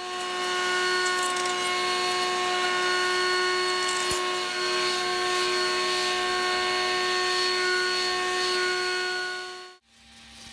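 Router on a router table running at full speed with a steady high whine, cutting the rebate in the end of a wooden table leg. The sound cuts off suddenly near the end, leaving a fainter, lower hum.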